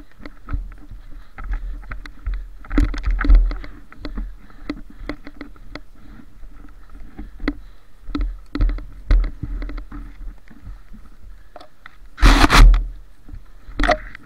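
Footsteps crunching through snow, with clothing and gear rustling and knocking against the camera. A louder half-second burst of rustling noise comes about twelve seconds in, and a shorter one just before the end.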